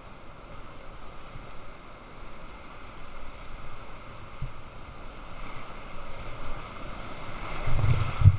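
Whitewater rapids rushing around a kayak, heard close up from the paddler's position. The sound grows louder near the end, with low thuds as the boat drops through the waves and water splashes over the camera.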